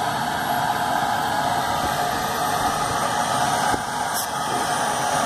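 Eurocopter EC135 air ambulance helicopter running on the ground: a steady turbine whine over the noise of the turning rotors.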